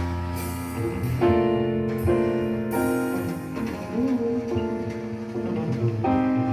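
Recorded piano music, chords struck in sequence, played back through loudspeakers driven by a single-ended Miniwatt EL3N pentode valve amplifier.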